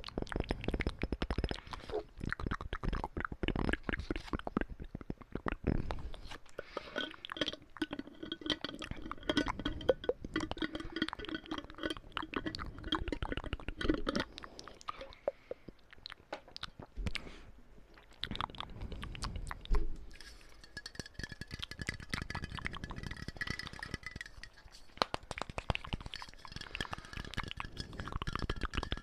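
ASMR mouth sounds and tapping: a dense run of rapid clicks and crunchy taps, with a faint ringing tone under them in places.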